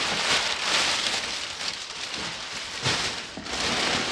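Crumpled brown kraft packing paper rustling and crinkling as it is pulled out of a cardboard box by the armful, in uneven surges with brief lulls.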